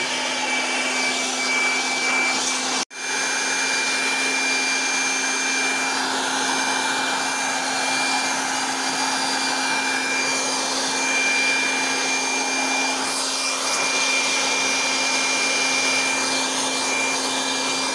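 Air blower running steadily, a steady whine over a rush of air, as its jet blows cobwebs and dust out of wire mesh netting. The sound cuts out for an instant about three seconds in.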